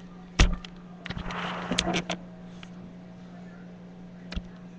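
Handling noise as the camera is moved and set down on a table: a sharp knock, a second of rustling and scraping with small clicks, and another knock near the end, over a steady low electrical hum.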